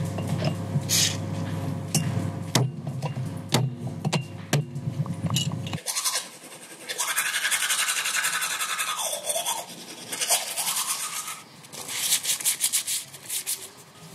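Teeth being brushed with a toothbrush close to the microphone, fast scrubbing strokes in two spells during the second half. Before that, a steady low hum with scattered clicks cuts off about six seconds in.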